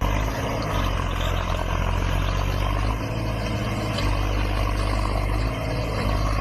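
Loud, steady engine noise with a deep rumble, starting abruptly and holding level throughout.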